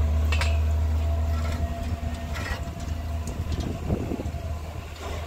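A motor vehicle's engine running with a steady low hum that turns uneven about three seconds in, with a few light clicks or knocks.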